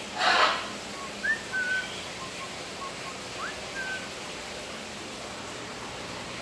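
Parrots calling: a short harsh squawk right at the start, then a few soft whistled chirps, short rising notes and brief level whistles.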